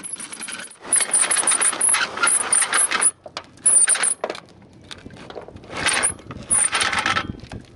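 Rusty anchor chain rattling link by link over a manual anchor windlass, with the windlass ratchet clicking as the lever is worked. It comes in four bursts, the first and longest lasting about two seconds. The old chain is being paid out.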